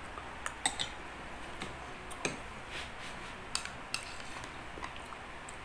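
Metal spoons clinking and scraping against a plate and a glass bowl while eating fruit salad, in scattered, irregular clicks.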